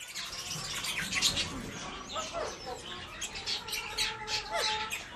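Parrots chattering: a steady run of quick high chirps and squawks, with a few sliding calls.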